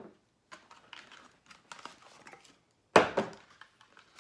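Things being handled on a tabletop: light clicks and rustling, then a sharp knock about three seconds in as something hard is set down.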